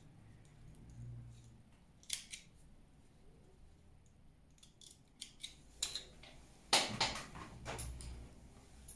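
Spring-loaded thread snips clipping loose thread ends from a small silk piece: a scatter of short sharp snips, a pair about two seconds in and a cluster later, the loudest about seven seconds in.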